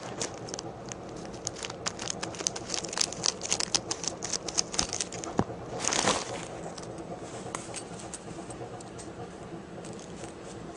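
Plastic packaging and small Beyblade parts being handled during unpacking: crinkling with many light clicks for about five seconds, a louder rustle about six seconds in, then quieter handling.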